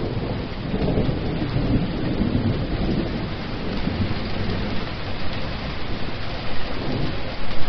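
Heavy rain falling steadily in a dense hiss, with a low rumble of thunder underneath that swells in the first few seconds and again near the end.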